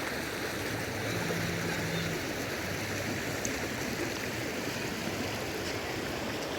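Floodwater of a swollen river rushing by in a steady, even wash of noise.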